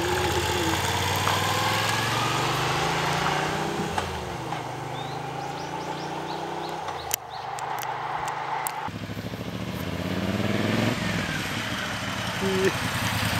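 Motorcycles passing on a road one after another, their engines rising in pitch as they accelerate away, then dropping back before the next bike comes through and pulls away.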